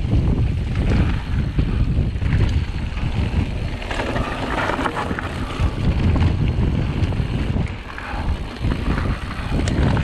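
Wind buffeting the microphone of a camera on a mountain bike riding fast down a trail, with a steady low rumble and the crackle of tyres running over loose gravel.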